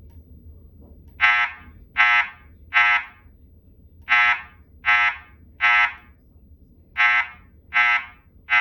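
Wheelock ET70WP-2475-FR fire alarm speaker sounding the temporal-three evacuation tone between voice messages: three groups of three short, loud, buzzy tones, each group separated by a longer pause.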